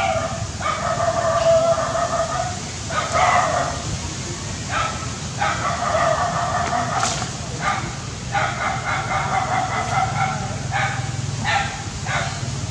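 Baby macaque crying: a run of drawn-out, whining calls, each half a second to two seconds long, repeated with short breaks.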